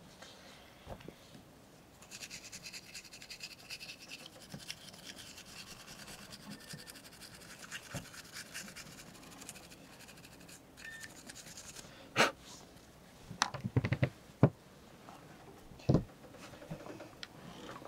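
A toothbrush scrubbing the small parts of an old circuit breaker, giving a fast, steady scratching for about ten seconds. Near the end come several sharp clicks and knocks as the plastic parts are handled and set down on the table.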